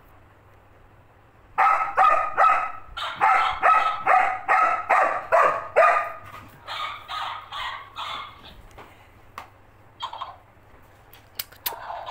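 Yellow Labrador barking in a rapid run, about three barks a second, starting about a second and a half in; the barks turn quieter and higher after about six seconds and stop near the nine-second mark.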